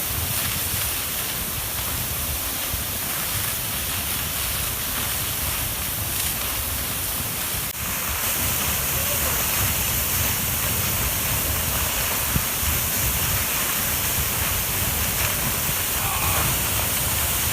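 Steady rush of a waterfall's falling water, with a brief break about eight seconds in and faint voices near the end.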